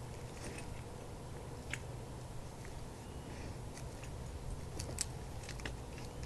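Dogs nosing and digging in dry dirt and gravel: scattered soft crunches and clicks, a few bunched together near the end, over a faint low rumble.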